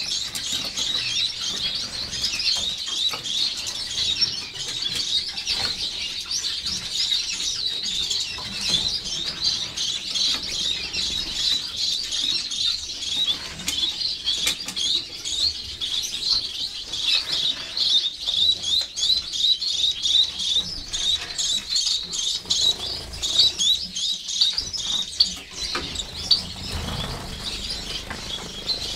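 A cage of mixed finches, Gouldian finches among them, chirping continuously in a dense chorus of short high notes. A brief low rumble comes near the end.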